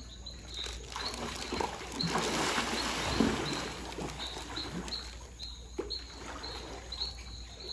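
Pool water splashing and churning as a child swims underwater, loudest around the middle. A short high chirp repeats about twice a second throughout.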